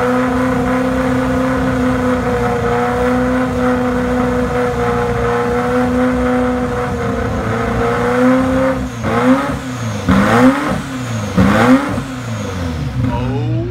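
Ferrari F40's twin-turbo V8 idling steadily with its engine cover open, then revved in several quick throttle blips from about two-thirds of the way in, each rising and falling back, before it settles to idle again.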